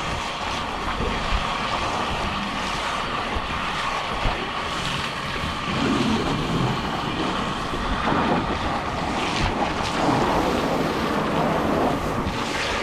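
Water spraying hard and steadily against a vehicle, a continuous hiss of spray, as the welding rig truck is washed.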